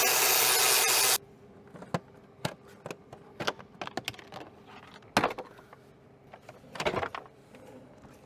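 A power driver runs on a dash screw and stops about a second in, followed by scattered plastic clicks, knocks and rubbing, with one sharp crack, as the glove box is worked loose from the dashboard.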